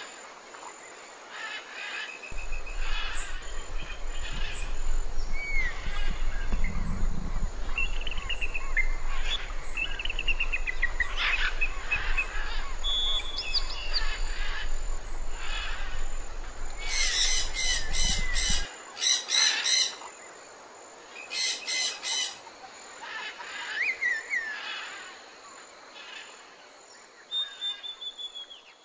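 Wild birds chirping and whistling, with many short rising and falling whistled notes, and a rapid harsh chatter twice past the middle. A low rumble runs underneath for most of the first two-thirds.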